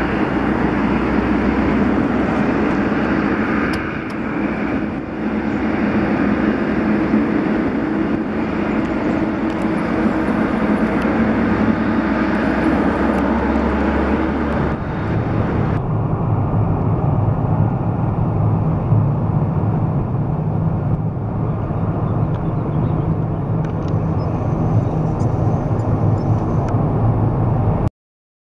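Airbus A330-200 jet airliner landing: steady jet engine noise on the approach. About halfway through it changes to a deeper, duller rumble while the aircraft is on the runway, and it cuts off suddenly near the end.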